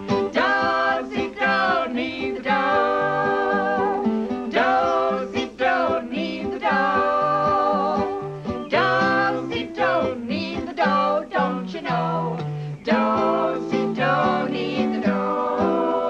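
Sung children's folk song: voices singing together over a strummed acoustic guitar, with several long held notes.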